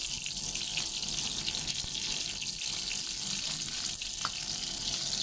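Gyoza frying in hot oil in a non-stick pan: a steady sizzle with small crackles and pops.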